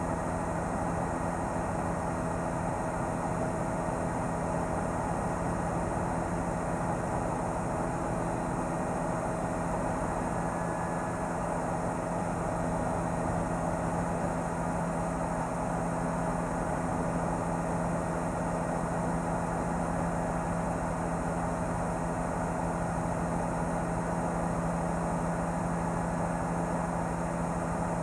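News helicopter's engine and rotors droning steadily, with several fixed tones held over an even rushing noise.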